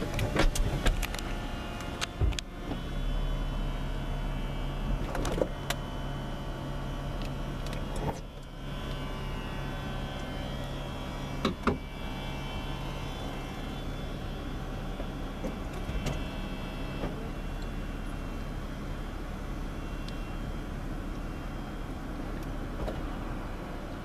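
Mercedes-Benz SLK320's electro-hydraulic retractable hardtop folding down into the trunk: a steady hum from the roof's hydraulic pump, with clicks and clunks as the lid and roof sections move and latch.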